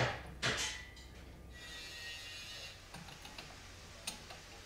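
Faint light clicks and knocks of tools and fork parts being handled, with a soft rustle partway through.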